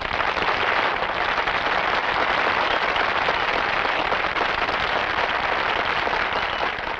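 A crowd applauding steadily, a dense patter of many hands clapping, in answer to the end of a speech.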